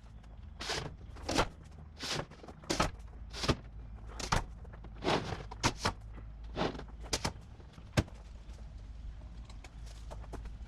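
A series of short knocks and thuds, about one every 0.7 s at first and then more irregular, over a faint low steady hum.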